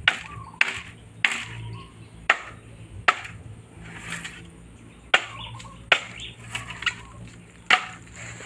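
A bolo hacking into a bamboo culm to split it lengthwise: about eight sharp, irregularly spaced chops.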